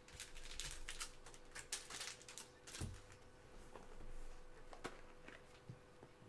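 Faint scattered light clicks and rustles, thickest in the first two seconds, with a soft thump about three seconds in.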